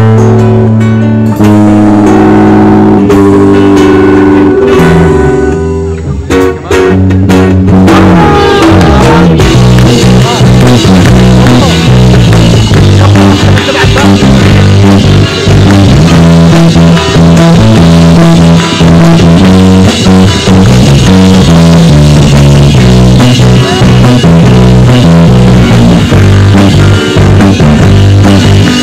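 Live band music: acoustic and electric guitars with a bass line play held chords, then a drum kit comes in about seven or eight seconds in and the full band plays on.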